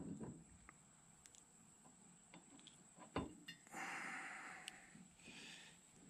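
Faint handling noises of a new U-joint being fitted into a driveshaft yoke by hand: a knock at the start, a sharper metal knock about three seconds in, light ticks, and a short rustle about four seconds in.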